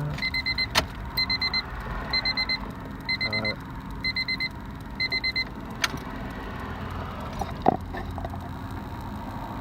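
A 1996–2000 Honda Civic's dashboard warning chime beeping in quick groups of four high beeps, about once a second, stopping after about five seconds once the key is in the ignition. Two sharp clicks follow.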